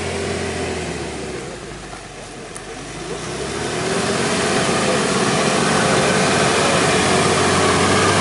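Ford Ranger Wildtrak pickup's engine as the truck drives over a muddy grass track toward the listener. The engine note dips briefly about two seconds in, then grows steadily louder from about three seconds in as the truck comes closer.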